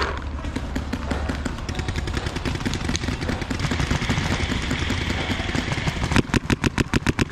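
Paintball marker firing a rapid string of shots, about ten a second, near the end, over a steady rustling background.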